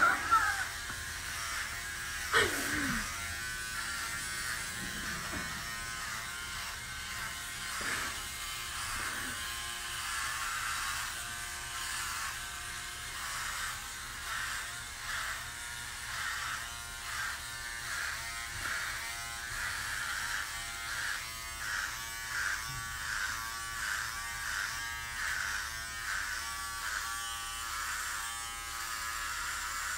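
Electric hair clippers buzzing steadily as they are run over a scalp already buzzed short; in the second half the buzz swells and dips about once a second with each pass. A brief sharp sound comes about two seconds in.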